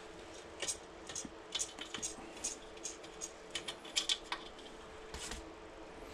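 Bicycle spokes and a spoke nipple being handled at a carbon rim and hub during wheel lacing: an irregular run of light, sharp metallic clicks and taps, more than a dozen, the loudest about four seconds in.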